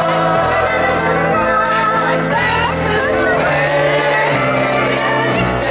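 Live band music with singing: accordion, a small stringed instrument and keyboard over a stepping bass line and a steady drum beat.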